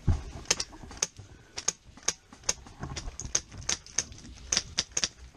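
Airsoft guns firing in a woodland firefight: sharp, irregular snaps, two or three a second.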